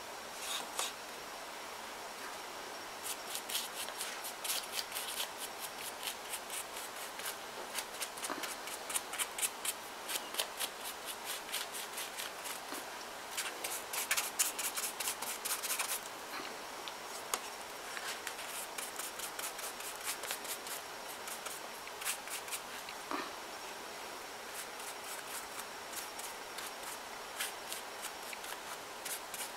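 Stiff paintbrush scrubbing and dabbing gesso over a paper-mache head: a dry, scratchy bristle sound in quick runs of short strokes with brief pauses between them.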